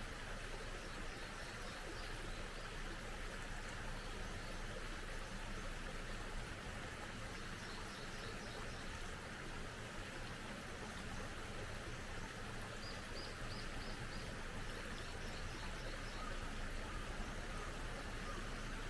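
Small mountain stream flowing steadily, with faint high bird chirps in short runs now and then.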